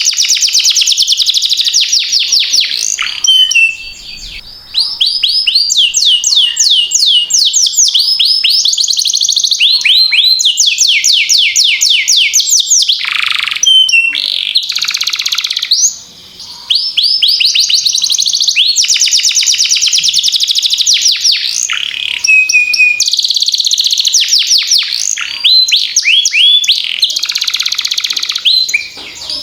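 Domestic canary singing a long song of rapid trills, each a fast run of repeated falling chirps, switching from one trill type to the next with only two short breaks.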